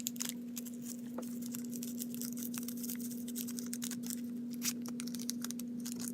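Irregular small clicks, taps and rustles of borax powder being scooped out of its bag with a teaspoon, over a steady low hum.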